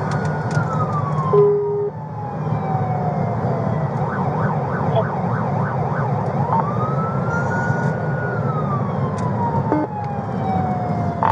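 Police car siren wailing, heard from inside the pursuing patrol car: slow rises and falls in pitch, with a quick warbling stretch about four seconds in. Engine and road noise run underneath, and a short beep sounds about a second and a half in.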